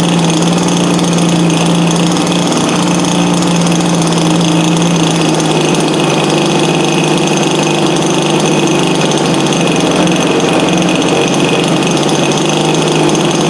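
Gas-powered RC plane engine idling steadily, its pitch easing slightly lower about halfway through as the idle speed is trimmed down with the transmitter's dial.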